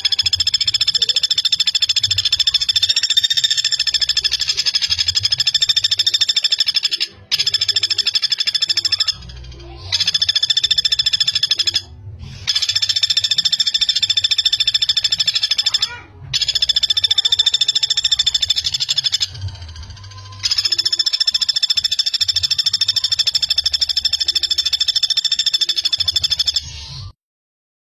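Pelatuk bawang, a flameback woodpecker, calling in long, fast, dense rattling trills, six runs of about two to seven seconds each with short breaks between them.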